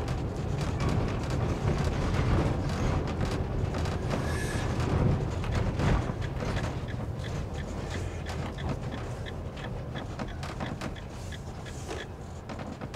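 Motorhome driving along a town street, heard from inside the cab: a steady low engine and road rumble with many small clicks and rattles, easing off a little over the last few seconds.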